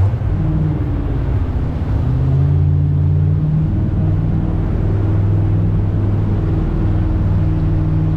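Jet boat's engine running at speed under a steady drone, with water rushing against the hull; the engine note dips and picks up again about two seconds in.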